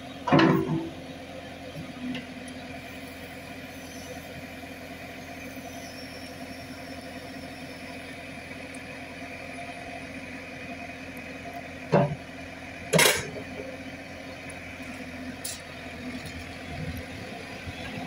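JCB 3CX backhoe loader's diesel engine running steadily while the backhoe arm is worked. Three sharp knocks stand out: one right at the start and two a second apart about two-thirds of the way through.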